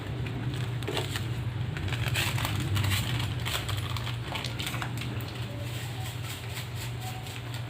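Cooking in a pan: irregular crackling and clicks of frying and a utensil working the pan, busiest in the first half, over a steady low hum.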